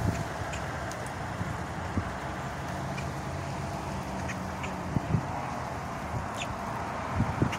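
Boat-tailed grackles giving short, sharp call notes, scattered several times, over a steady hiss of outdoor background noise with a few low thumps.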